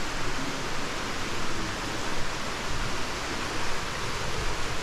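Steady rushing of fast-flowing river water, an even wash of sound with no breaks.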